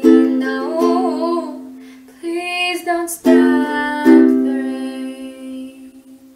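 Closing chords on a strummed string instrument ringing out as a song ends, with a last wavering sung note near the start. Fresh chords strike three times, and the final one fades away.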